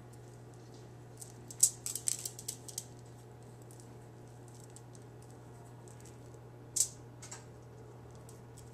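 Small clicks and light crinkles from hands working cookie dough over a bowl and setting a dough ball down on aluminium foil: a quick run of clicks from about one to three seconds in, then one sharper crinkle near the end. A steady low hum runs underneath.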